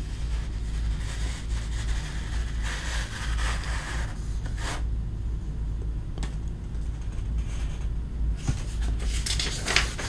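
Handling noise: scattered rustles and scrapes over a steady low hum, with a cluster of sharper scrapes near the end.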